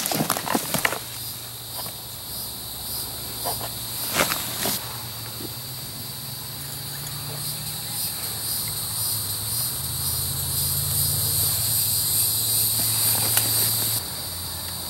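Steady high-pitched buzzing of a summer insect chorus in the woods. Footsteps crunch through dry leaf litter a few times near the start and again about four seconds in.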